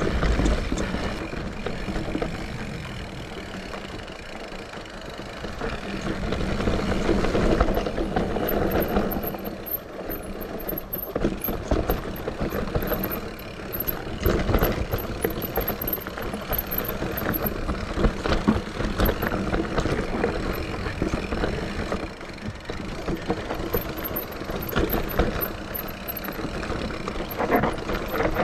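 Santa Cruz Heckler electric mountain bike ridden fast down a rough natural dirt trail: tyres rumbling on the ground and the bike rattling and knocking over bumps.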